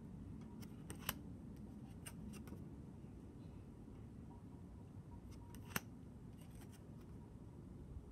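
Faint, crisp clicks and snaps of stiff tarot card stock as cards are swapped one behind another in the hand, coming in small clusters with a sharper snap a little before six seconds in, over a low steady hum.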